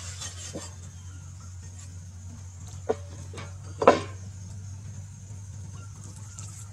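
Meat cleaver knocking on a wooden chopping board while a raw fish is cut up: a few separate knocks, the loudest about four seconds in, over a steady low hum.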